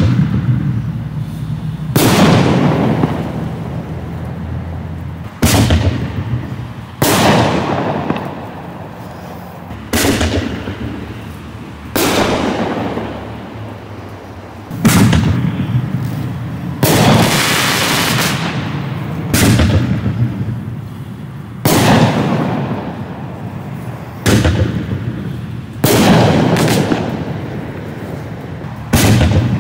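Black Cat Magnum consumer artillery shells being fired one after another: a sharp loud bang about every two to three seconds, each trailing off slowly before the next.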